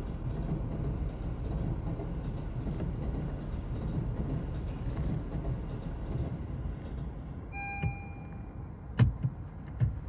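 Keio Line commuter train running past a level crossing, a steady low rumble that eases off about seven seconds in. A short electronic beep follows, then a few sharp clicks near the end.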